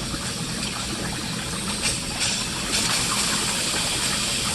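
Hot water rushing and hissing out of a water heater's opened drain during a flush, a steady gushing hiss that gets a little louder near the middle.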